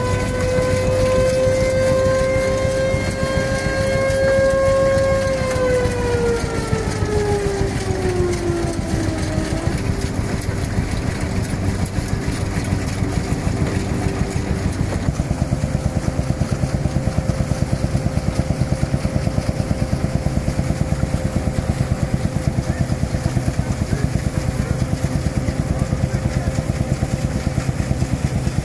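Vintage belt-driven threshing machine running, powered by an old tractor, with a humming whine whose pitch sinks during the first several seconds. In the second half the machinery runs on with a steady hum and a fast, regular clatter.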